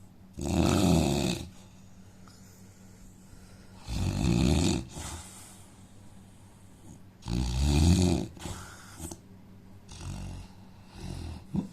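A man snoring: three loud snores, each about a second long and about three and a half seconds apart, with quieter breathing between. The uploader puts the snoring down to a problem with his nose.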